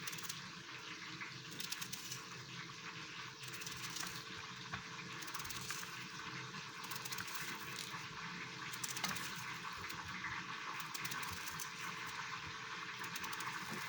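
Food frying in hot oil: a steady sizzle with frequent small crackles and pops.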